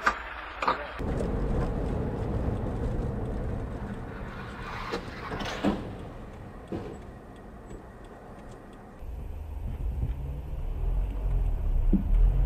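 Car engine and road noise heard from inside a moving car through a dashcam microphone. It changes character abruptly twice, with a couple of brief louder sounds about five seconds in.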